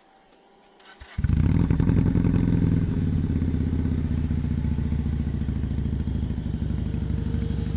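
Keeway SCR 250V motorcycle engine breathing through a shortened custom exhaust with a half-cut baffle, starting up about a second in and then running at a steady idle, loud and low-pitched.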